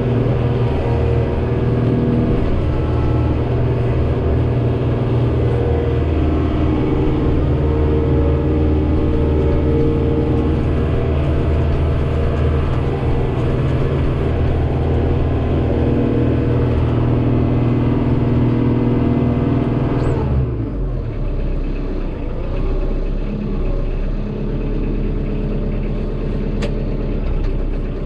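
Kioti DK40se tractor's diesel engine running fast and steady, heard from inside the tractor cab. After about twenty seconds the sound drops suddenly to a lower, rougher running note.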